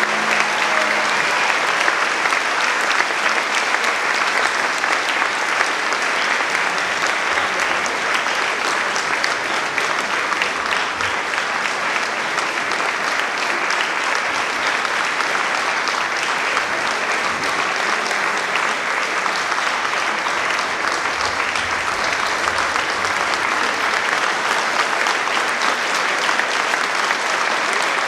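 Audience applauding steadily and densely, with the last of the recorded music dying away in the first second.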